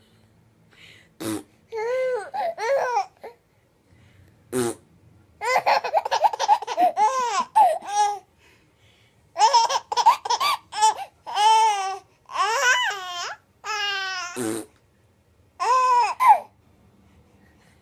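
A baby laughing in repeated fits, with high squeals and babbling between them. A few brief noisy blasts come between the laughs.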